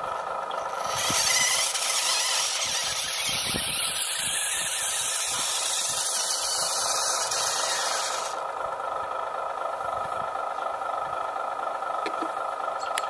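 Radio-controlled model construction machines running, a steady whine of small electric motors throughout. A louder hissing, squealing whine comes in about a second in and cuts off suddenly about eight seconds in, as the model dump truck drives off.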